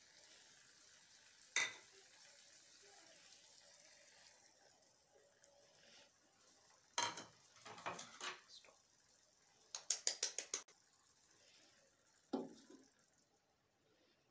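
Light clinks of a small bowl and spoon against a cooking pan as eggs are tipped into a simmering tomato-and-potato mixture, with a quick run of about six light taps about ten seconds in and a knock near the end. A faint sizzle from the pan on a low flame.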